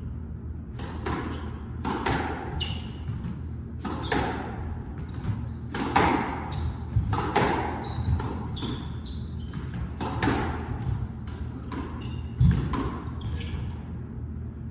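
Squash rally: a rubber squash ball cracking off racquets and the walls of a reverberant court, a dozen or so sharp hits with the loudest one near the end. Rubber-soled court shoes give short high squeaks on the wooden floor between shots.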